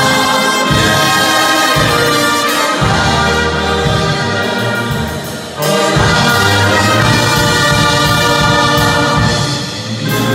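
Czech brass band playing live in full ensemble: trumpets, trombones and tubas carrying the tune over a steady bass line. The sound thins out briefly about five and a half seconds in, then the whole band comes back in.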